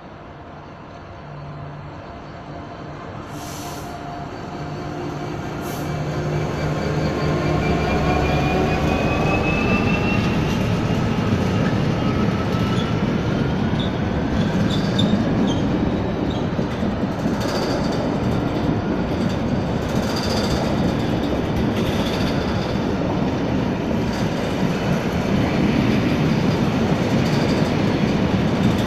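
A Class 66 diesel freight locomotive approaches and passes, its engine growing louder over the first several seconds. Then a long train of oil tank wagons rolls by with a steady wheel-on-rail rumble, some high wheel squeal and scattered clicks over the rail joints.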